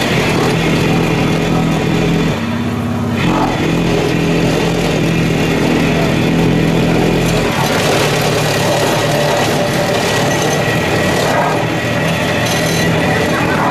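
Steamroller engine running steadily under a continuous mechanical drone, its note changing briefly a couple of seconds in and again about halfway through.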